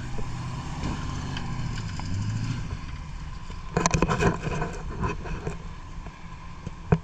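Jeep engine running steadily, with a burst of clattering knocks about four seconds in and one sharp knock near the end.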